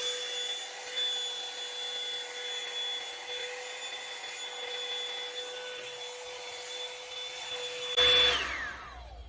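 Revlon One-Step hair dryer brush running with a steady motor whine and rush of air. About eight seconds in it is switched off, and the whine falls in pitch as the motor spins down.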